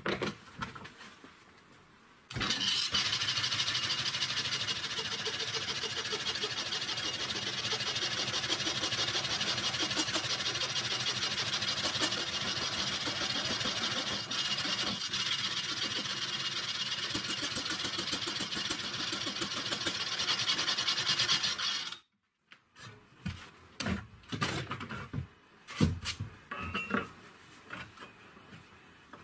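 Homemade motor-driven saw built from car parts cutting through clamped softwood beams: the motor runs and the blade rasps steadily through the wood for about twenty seconds, starting a couple of seconds in and stopping abruptly. Then a few light knocks of handling.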